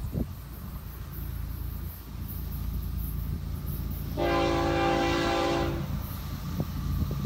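An approaching Florida East Coast Railway GE ES44C4 diesel locomotive, heard as a low rumble. About four seconds in, its horn sounds one chord held for about a second and a half.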